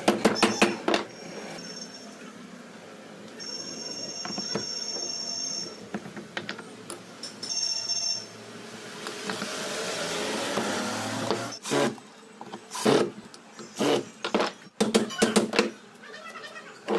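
Ceiling fan being repaired by hand: knocks and clicks of tools on the fan's metal parts, short high-pitched squeals, and a whirring that rises for a couple of seconds near the middle.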